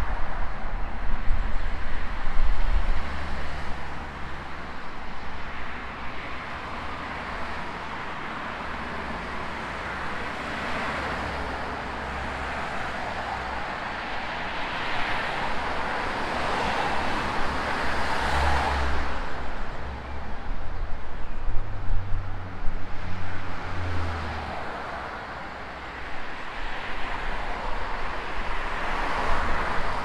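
Road traffic: a steady wash of car noise that swells and fades as vehicles pass, the loudest pass about two-thirds of the way through.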